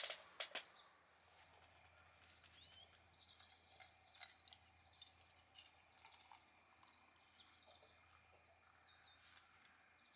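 Near silence broken by faint, high chirps in short clusters every second or two, with a couple of sharp clicks at the very start.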